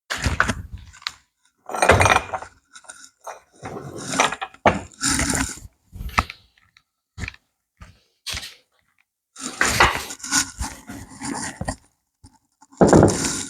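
Irregular clanking, clinking and scraping of metal parts being moved about, with the loudest knocks about two seconds in, about ten seconds in and near the end.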